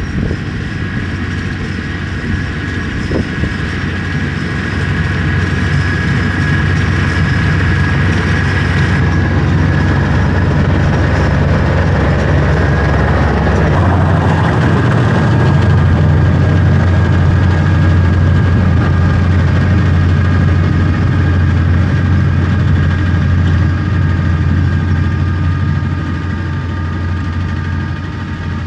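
Kubota M9000 tractor's diesel engine running steadily under load as it pulls a haybine through the hay, with a steady whine over the low engine note. It grows a little louder in the middle and eases off near the end.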